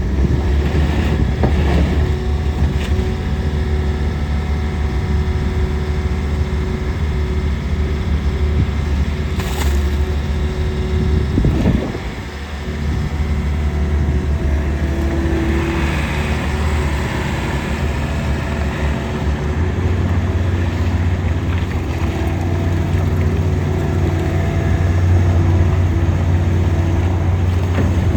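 Bobcat T66 loader's diesel engine running steadily, dipping briefly about halfway through, then settling at higher revs for the last part.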